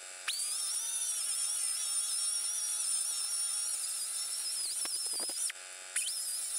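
Handheld angle grinder running with a steady high whine while grinding the edges of a steel bending-brake leaf. It stops about five and a half seconds in and starts up again just before the end.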